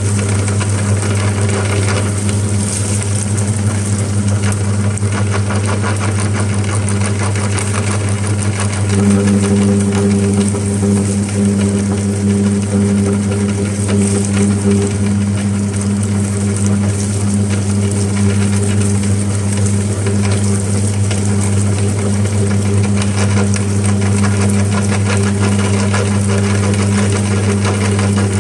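Meat grinder motor running steadily as it grinds pepper: a constant hum with fine crackle over it, growing a little louder about nine seconds in.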